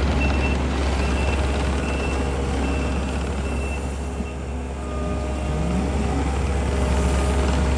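Takeuchi skid steer's engine running steadily, with its reversing alarm beeping about once every 0.8 seconds until the beeps stop about halfway through.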